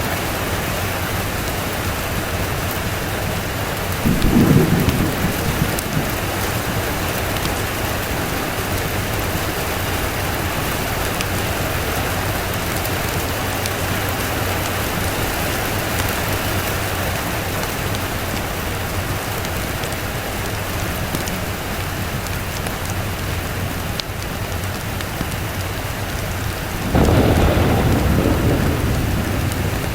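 Steady rain falling, with thunder rumbling twice: a short low rumble about four seconds in, and a longer one near the end that fades out.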